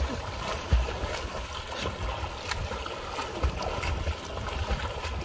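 River water splashing and sloshing around two swimmers, with a few sharper splashes, over wind buffeting the microphone.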